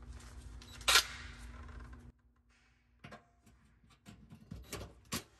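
A cordless drill-driver working at the screws of an oven bake element's terminal plate: a sharp click about a second in, then a few clicks and several short bursts near the end as the driver engages the screws.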